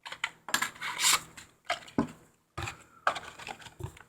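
Packaging being handled as a miniature model car is unpacked: bursts of crackling rustle and sharp little clicks in several clusters, with short gaps between them.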